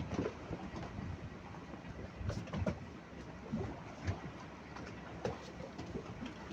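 Wind and water noise with scattered light taps and irregular low knocks.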